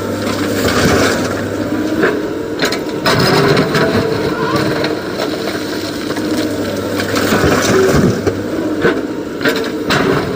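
SANY excavator at work loading a tipper truck: its diesel engine running steadily under load, with sharp clattering knocks about two and three seconds in and again near the end.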